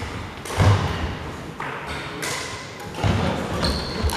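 Badminton rackets striking a shuttlecock and players' footsteps thudding on a wooden sports-hall floor: a string of sharp hits, echoing in the large hall, with a brief shoe squeak near the end.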